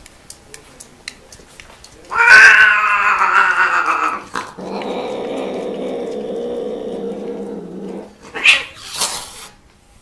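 Mating cats: a loud, wavering yowl about two seconds in, then a lower, drawn-out growling yowl, ending with two short harsh hisses as the pair breaks apart.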